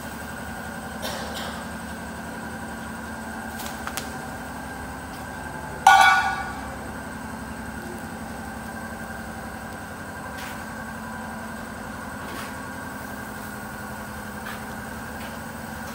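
CNC woodworking router machinery running with a steady hum. A short, loud, pitched blast sounds about six seconds in and fades within half a second, with a few faint clicks scattered through.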